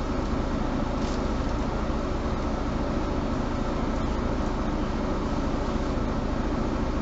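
Mercedes-Benz Citaro G articulated bus heard from inside the passenger cabin: a steady drone of engine and running noise with a thin steady hum.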